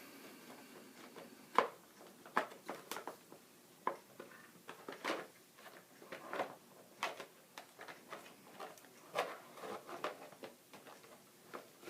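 Radio-control helicopter servos moving in short, irregular whirs and clicks as the transmitter sticks are worked, on a Kyosho Concept 30 nitro helicopter with its engine not running.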